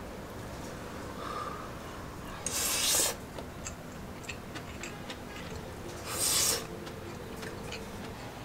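Eating sounds: a man chewing a mouthful of egg fried rice, with small clicks from a metal spoon. Two short, louder bursts of hiss come about two and a half and six seconds in.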